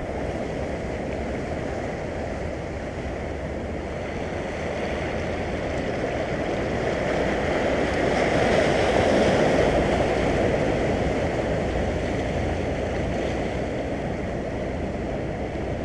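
Sea waves washing and churning over a low rock shelf, swelling as a wave surges across about halfway through, then easing.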